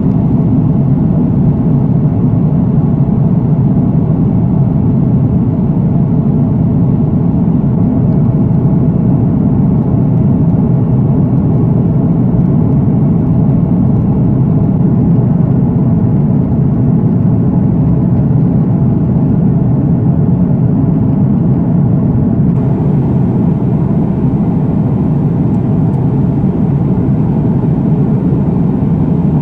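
Steady low drone inside an Airbus A330-900neo's cabin in cruise: engine and airflow noise.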